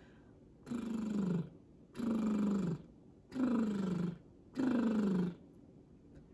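A woman's lip trills, her lips buzzing on a voiced breath: four short trills in a row, each gliding down in pitch, as a descending-pitch vocal warm-up.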